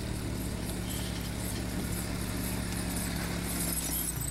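Four-wheeler engine running at a steady pace as it tows a wheeled roping dummy, with a loping horse's hoofbeats on dirt beneath it. The engine note changes near the end.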